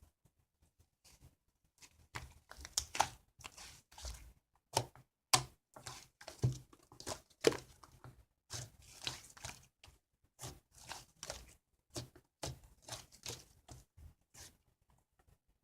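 Hands pressing, poking and stretching slime or slime-clay at close range: irregular sticky clicks, crackles and small tearing sounds, in quick clusters with short pauses between.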